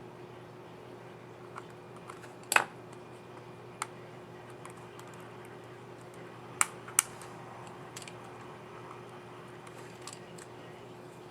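Plastic clicks from a laptop keycap and its scissor mechanism on a Dell Inspiron 13 7359 keyboard being handled and snapped into place. There are a few separate sharp clicks, the loudest two-thirds of the way in, with two close together.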